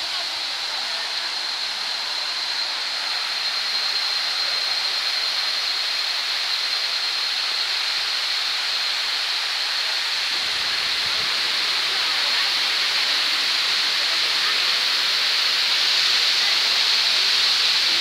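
Waterfall: a steady rush of falling water that grows a little louder in the second half, with a thin, steady high whine over it.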